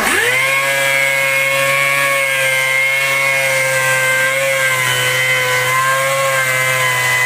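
Small electric power-tool motor switched on, spinning up quickly and then running steadily with a whine.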